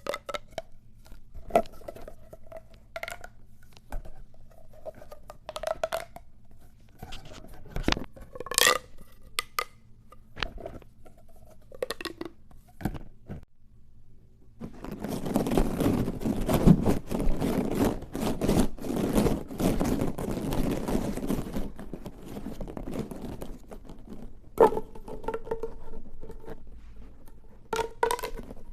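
Plastic pop tubes being stretched and squashed: scattered clicks and short pitched pops, then about halfway through some ten seconds of dense crackling as the ribbed tube is worked quickly, then single pops again near the end.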